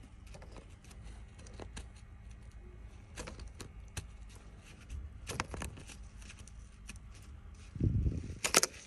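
Scattered light clicks and taps of small metal parts being handled while a cap is fitted onto the splined shaft of a steering rack, with a louder knock and rustle near the end.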